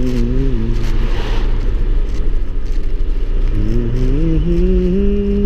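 Car engine and road rumble heard from inside the cabin while driving: the engine note sits low for a few seconds, then rises about three and a half seconds in as the car speeds up, and holds.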